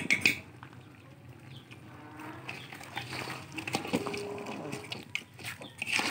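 A metal spoon knocks and scrapes in a large cooking pot as a stew is stirred, with sharp knocks at the start and near the end. A farm animal calls in the background in the middle.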